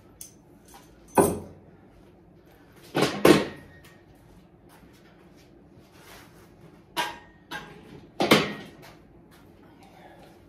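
Gym equipment being handled and set down: a series of sharp knocks and clanks, a couple ringing briefly. The loudest come about a second in, a double knock around three seconds in, and another just after eight seconds.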